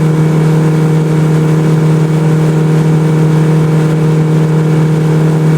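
Motorboat engine running at a steady speed, one constant low hum with an even hiss over it.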